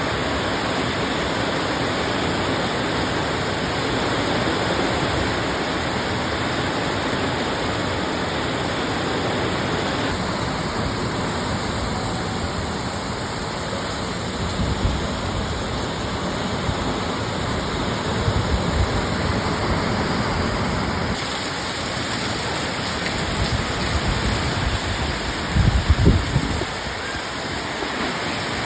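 Heavy rain pouring steadily in a storm with strong winds, with a few brief low gusts about halfway through and again near the end.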